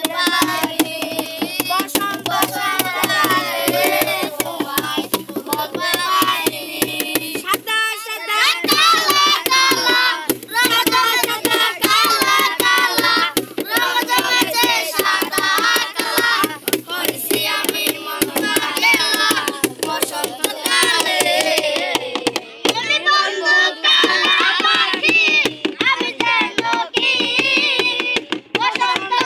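A group of boys singing a song together in unison, with fast, steady tapping keeping time under the voices.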